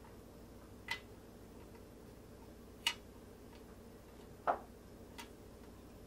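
Four light clicks and taps spread over several seconds, from hands pressing caramel around pecan pieces on a wax-paper-lined cookie sheet, over a faint steady hum.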